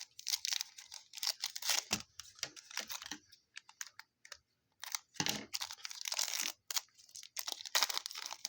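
Foil trading-card pack wrapper being torn open and crinkled in the hands, in repeated uneven bursts.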